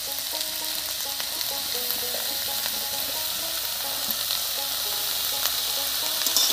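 Chopped vegetables sizzling steadily in hot mustard oil in a wok as the remaining vegetables (eggplant, peas and beans) are tipped in on top.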